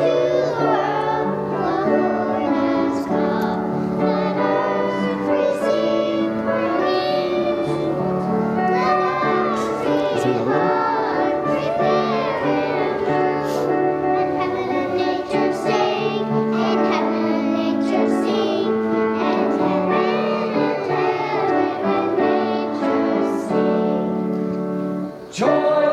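Children's choir singing a song with instrumental accompaniment, the sound dropping out briefly and restarting abruptly near the end.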